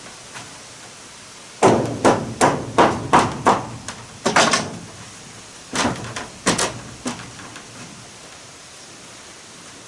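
Hammer blows on wood, about three a second in a run of some ten strikes, then a short pause and a handful more.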